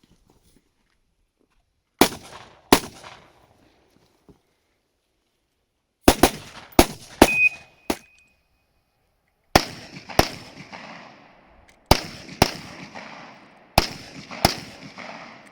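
Rifle shots fired in a practical-shooting stage: two shots, a quick string of about five, then three pairs of shots about half a second apart, each report trailing off in echo. A short ringing tone follows one shot just after the middle.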